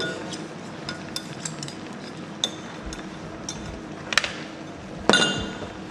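Kitchen utensil clinking against a dish while chopped garlic is mixed into parsley oil: scattered light clinks, with a louder ringing clink about five seconds in.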